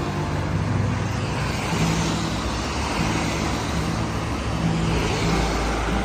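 Cars passing one after another on a wet road, tyres hissing on the wet surface, with the hiss swelling twice as cars go by. Low notes of background music run underneath.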